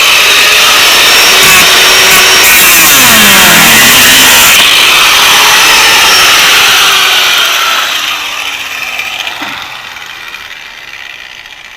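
Power tool fitted with a metal cut-off wheel grinding through metal, its pitch sagging and recovering under load. About eight seconds in it is released and the wheel winds down, the sound fading away.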